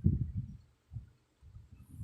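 A sleeping woman snoring: low, rattling snore sounds that die away about half a second in, a brief one near one second, and another starting about a second and a half in.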